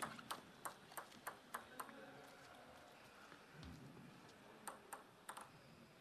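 Celluloid table tennis ball bounced on the table by the server before serving: light, evenly spaced clicks about three a second for the first two seconds, then a few more near the end.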